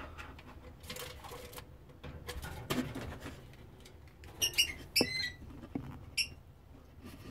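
Wooden nest box handled and opened, with rubbing and a few knocks, while a lovebird inside gives several short, high-pitched squeaky chirps in a cluster about four to five seconds in and once more about a second later.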